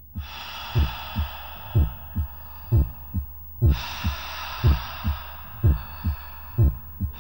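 Heartbeat sound effect from an intro soundtrack: a deep double thump, strong then softer, about once a second. It sits under a hissing swell that fades and then starts again about halfway through.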